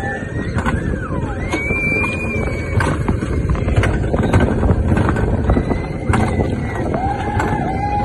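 Alpine coaster sled running fast down its steel rail track, a steady rumble of wheels and rushing air with sharp clacks now and then. A few drawn-out high-pitched tones rise and fall over the rumble.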